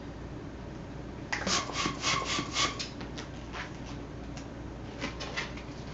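Latex modelling balloon squeaking as it is rubbed and twisted in the hands. A quick run of squeaks about a second in, then a few scattered ones.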